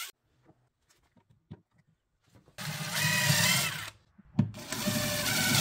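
DeWalt 20V cordless driver spinning a countersink drill bit into plywood, in two runs of about a second and a half each, with a sharp click just before the second.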